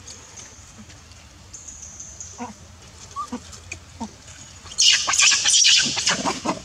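Monkey (macaque) screaming: a sudden loud, harsh run of screeches starting about five seconds in. Before that only faint short calls and rustles.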